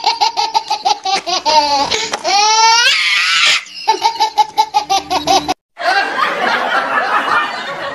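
Laughter sound effect: rapid bursts of high-pitched laughing, with a wavy rising squeal about two and a half seconds in; it breaks off for a moment just before six seconds and starts again.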